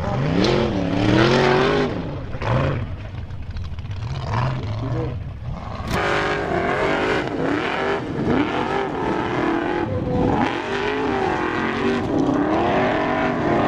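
Formula Offroad buggy engine revving hard and unevenly as the buggy claws up a steep sand hill, the pitch rising and falling as the wheels spin. About six seconds in the sound switches abruptly to another buggy's engine.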